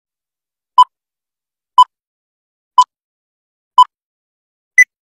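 Film-leader countdown beeps: five short beeps one second apart with silence between, the last one higher in pitch.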